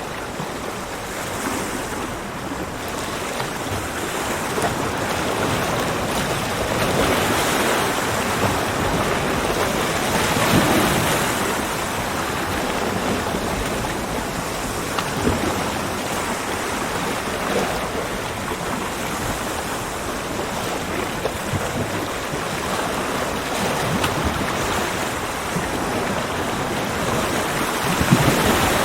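Ocean waves breaking and washing on a beach, a continuous surf rush that swells and eases every few seconds, with a brief louder peak near the end.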